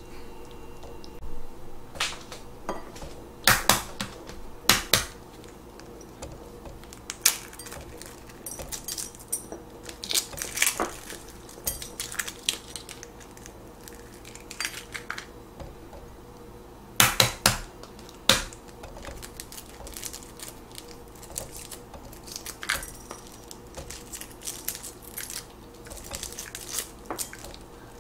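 Boiled eggs being cracked and peeled by hand: sharp taps and crackling of eggshell as it breaks and comes away. The loudest taps come in two quick clusters, about a third of the way in and again just past the middle.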